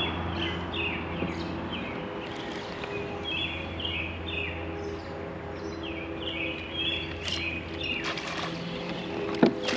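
Birds singing in repeated short chirping phrases, over a steady low hum that stops about eight seconds in. A single sharp click comes near the end.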